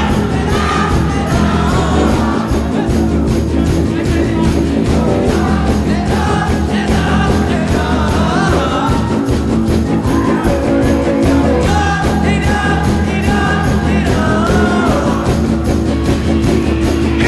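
Live rock band playing loudly, with drums, electric guitar and sung vocals.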